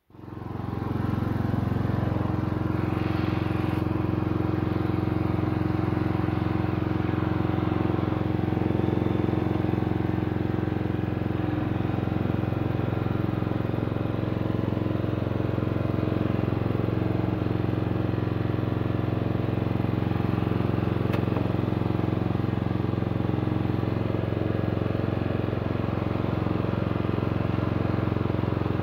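Simplicity lawn tractor engine running at a steady speed; it comes in abruptly right at the start and then holds an even note.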